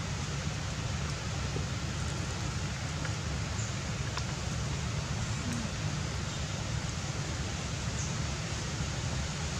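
Steady wind noise on the microphone: a low rumble under an even hiss, with a few faint ticks.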